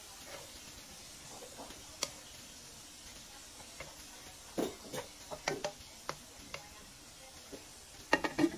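Chicken feet simmering in liquid in a nonstick wok with a steady hiss, stirred with a wooden spatula that knocks and scrapes against the pan through the middle. Near the end a glass lid clatters down onto the wok in a quick run of knocks, the loudest sounds.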